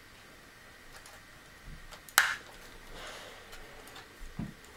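A toy RC military truck's plastic bonnet clicking open: one sharp snap about two seconds in, then soft handling noise and a short low thump near the end.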